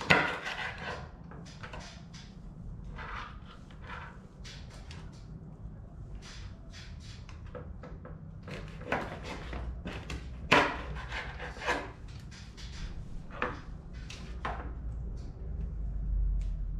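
Knife cutting catfish in half on a cutting board: irregular knocks and scrapes, with a few harder strikes through the fish, the loudest about ten seconds in.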